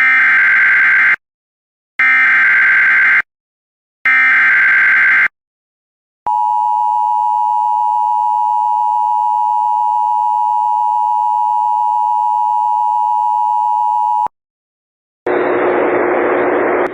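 Emergency Alert System broadcast: three bursts of SAME header data, each about a second long, then the EAS two-tone attention signal (853 and 960 Hz) held steady for about eight seconds. About fifteen seconds in, a hiss of noise comes in ahead of the voice message.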